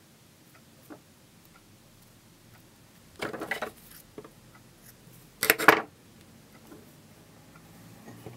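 Paper rustling and crinkling in two short bursts, about three seconds in and again about five and a half seconds in, as fingers twist a small strip of paper, with faint handling clicks between.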